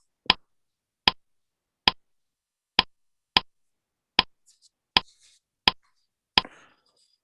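A run of nine short, sharp clicks, about one every 0.8 seconds, each one in step with another group of figures appearing on a presentation slide as it builds up.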